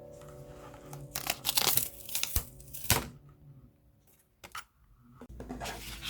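Paper or card being handled: a cluster of sharp rustles and taps in the first three seconds, a quiet stretch, then more rustling near the end.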